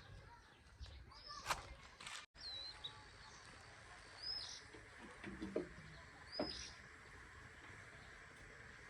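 Faint outdoor ambience with a bird repeating a short, high chirp every second or two, plus a couple of sharp clicks.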